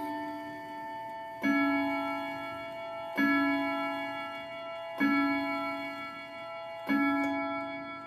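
Howard Miller triple-chime clock striking four o'clock: four deep, ringing strikes of its hour note, a little under two seconds apart, each dying away slowly, after the last note of the chime tune fades.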